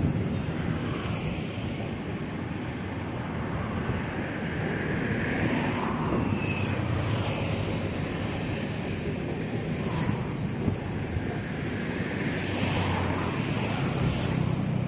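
Coaches of the Argo Semeru passenger train rolling through the station, a steady rumble and rush of wheels on rail.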